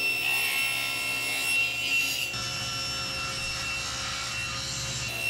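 SawStop cabinet table saw running with a steady high whine while its blade rips a walnut board fed along the fence with a push block.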